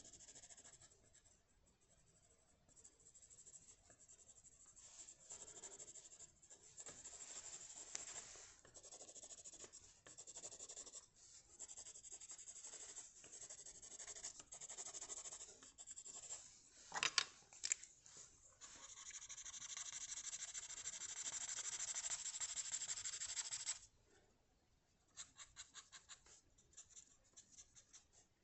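Drawing strokes scratching across paper, coming in short uneven runs. About two-thirds of the way in there are two sharp clicks, then several seconds of fast, steady back-and-forth colouring, and near the end a quick run of light taps.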